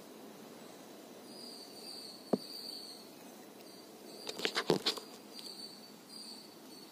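A high insect trill that comes and goes over a soft rustle of a terry towel rubbing a wet cat. One sharp click a little past two seconds in, then a quick run of clicks and knocks about four to five seconds in.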